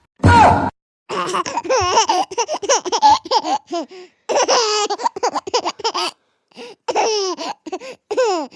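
High-pitched laughter in quick repeated bursts with short pauses between runs, after a short loud sound right at the start.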